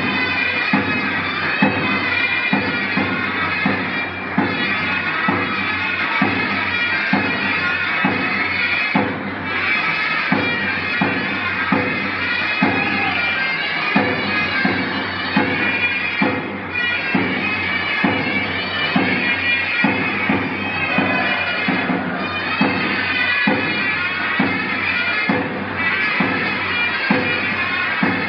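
Turkish folk dance music: a shrill, nasal zurna melody played over a steady davul drum beat, loud and continuous.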